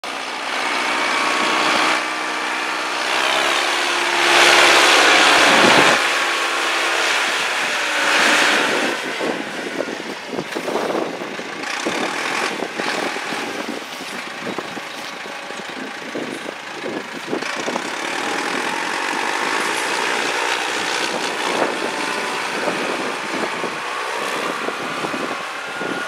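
Diesel engine of a wheel loader running as it pushes snow with a pusher box, with many short knocks and clatters through the second half. A louder rushing noise comes about four to six seconds in.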